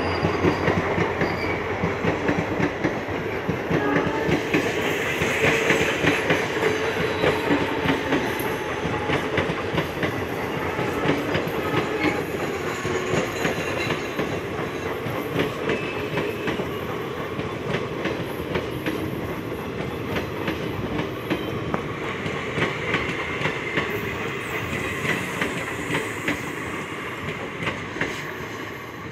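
Indian Railways passenger train of ICF coaches running through at speed, its wheels clattering over the rail joints. The sound is loud at first and slowly fades as the last coaches go by.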